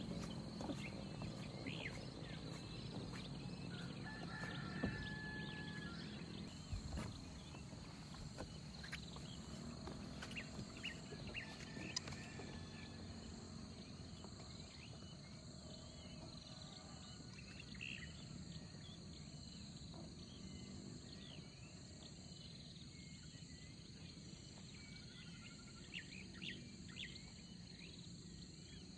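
Countryside ambience: a steady high insect drone with scattered short bird chirps, and footsteps on wooden boardwalk planks that grow fainter.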